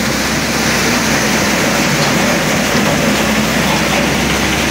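Malwa Agro Industries 'tokri' model threshing machine running, a loud, steady mechanical noise with a low hum under it.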